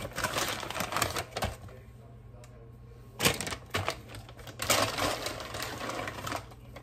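Plastic bag of sliced almonds crinkling and rustling as it is handled and shaken, in three bouts, the last and longest near the end.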